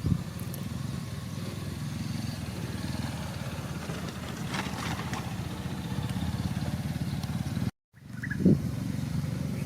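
Heavy diesel engine of earthmoving machinery running steadily with a low, fast-pulsing rumble; the sound drops out for a moment about eight seconds in, then resumes.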